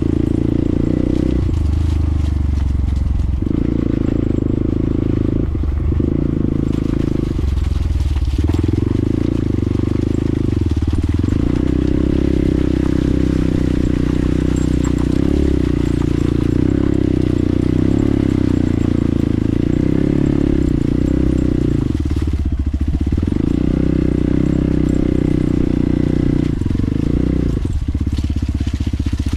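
Dual-sport motorcycle engine running under way on a muddy dirt trail, recorded from a mount on the bike. Its note shifts up and down every few seconds as the throttle and gears change.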